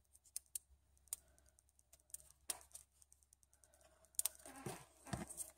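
Light clicks and ticks of fingers working a roll of adhesive dots and a penny, peeling a dot off its backing, with a denser run of small handling and rustling noises near the end.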